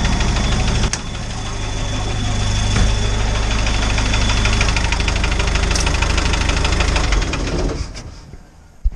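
Isuzu turbodiesel engine running steadily and noisily, then shut off about eight seconds in and winding down to a stop. A single sharp knock follows just after it stops.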